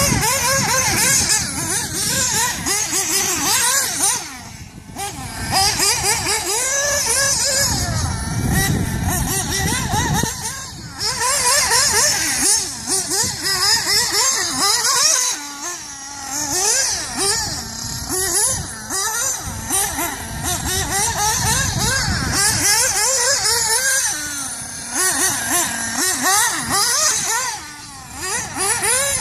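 Mugen MBX6 1/8-scale off-road RC buggy being driven, its motor revving up and down over and over, with brief let-offs about five seconds in and near the end.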